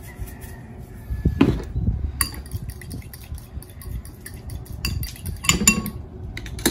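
A spoon stirring cocktail sauce in a ceramic bowl, with several sharp clinks against the bowl's side.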